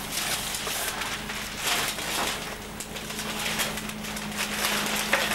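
Newspaper rustling in several irregular swishes as it is picked up and handled, over a steady low hum.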